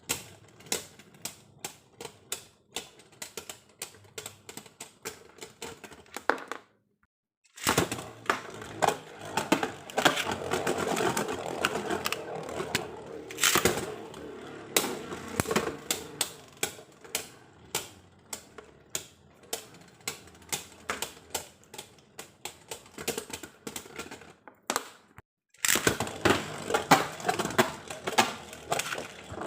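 Hard plastic clicks and taps from Beyblade Burst spinning tops and their parts, about two a second at first. After a brief silent break about seven seconds in, denser clicking over a steady scraping rattle runs until about 25 seconds, then sparser sharp clicks return.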